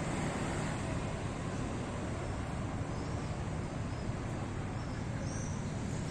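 Steady outdoor rumble with a noise-like hiss, strongest in the low range, with a few faint chirps about five seconds in.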